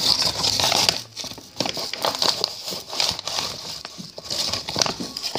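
Plastic flour bag crinkling and rustling as it is handled and shifted close to the microphone, in an irregular run of small crackles.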